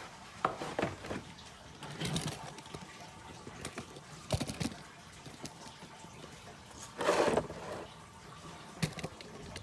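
Scattered short rustles and light knocks of handling as a plastic micrometer case is carried and set down, with the loudest rustle about seven seconds in.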